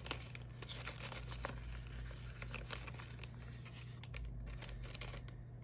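Plastic packaging crinkling and crackling as a card-backed bookmark is slid out of its green plastic sleeve; the crackles thin out after about four seconds.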